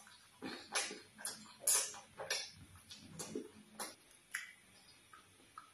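Close-miked wet chewing and lip-smacking while eating fufu with vegetable soup: irregular short clicks and smacks, several a second, the loudest about two seconds in.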